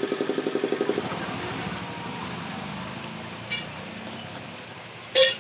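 A motor vehicle's engine running nearby with a quick, even pulse, fading away after about a second into a low hum. There is a short, sharp click just before the end.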